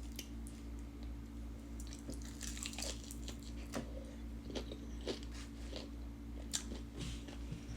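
Close-up chewing and biting of food, with faint crunching and short, irregular clicky mouth sounds.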